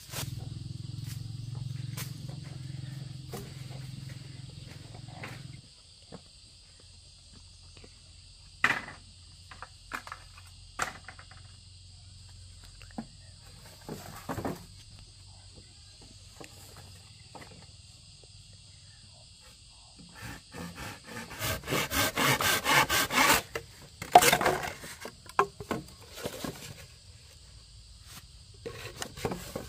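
Steady high insect drone, with a low hum that stops abruptly about five seconds in. Scattered knocks and rustles of bamboo poles being handled, then a dense run of scraping strokes about two-thirds of the way through.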